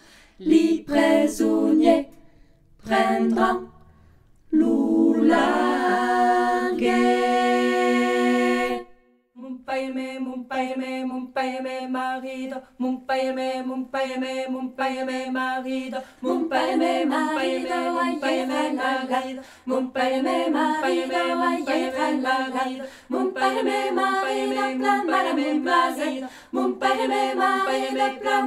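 A cappella choir singing as background music. Short phrases with breaks open it, then comes a long held chord, a brief silence about nine seconds in, and after that steady rhythmic singing to the end.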